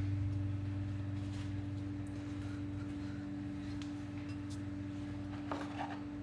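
A steady low machine hum with a few light clicks, and a short clatter near the end.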